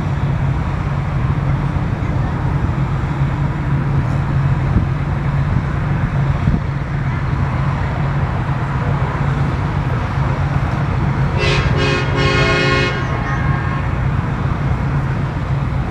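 A horn sounds a short series of toots about eleven and a half seconds in, over a steady low rumble like engines or traffic.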